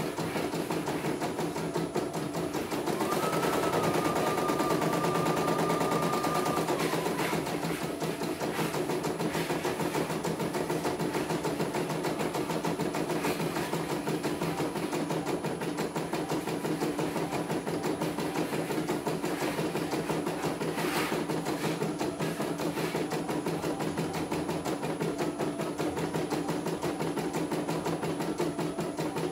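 CNY E900 portable computerized embroidery machine stitching a design: a fast, steady needle rhythm. A higher whine rises in about three seconds in and holds for about four seconds.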